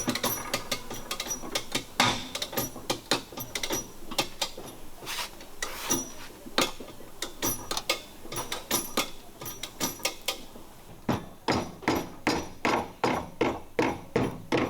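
Hammer tapping on a car's sheet-metal body panel to work out accident damage. The taps are irregular, then come faster and louder about two-thirds of the way through.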